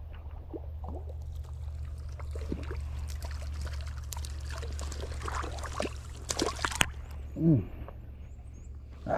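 Creek water trickling and sloshing around a wading angler, over a steady low rumble, with scattered small clicks. Near the end there is a short burst of sharp clicks, then a brief pitched sound falling in pitch, like a voice.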